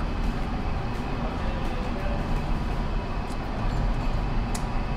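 Steady low rumbling background noise with a faint click about four and a half seconds in.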